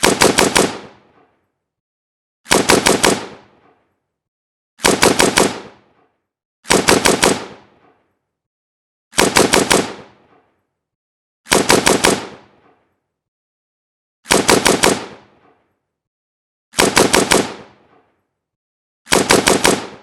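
AK-47 assault rifle firing in short bursts of four or five rounds, nine bursts about two to two and a half seconds apart, each shot sharp and the bursts ending in a brief echoing tail.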